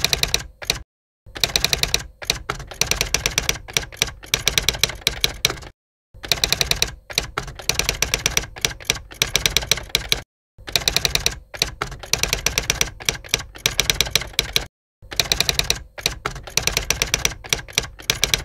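Rapid, dense runs of sharp key-like clicks, as of typing, in four near-identical stretches of about four seconds each, broken by short complete silences: an edited, looped sound effect.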